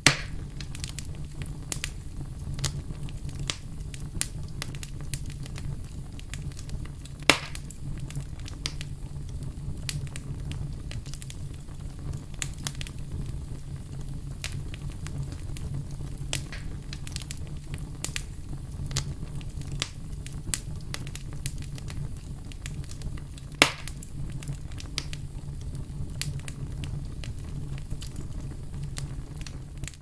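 Wood fire crackling steadily, with frequent small snaps over a low steady rumble. Three louder pops stand out: right at the start, about seven seconds in and about twenty-four seconds in.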